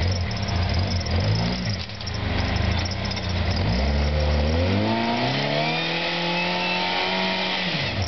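Off-road rock crawler's engine revving under load as it climbs a steep dirt slope: uneven revs at first, then it revs up about three and a half seconds in, holds high for several seconds and drops off right at the end.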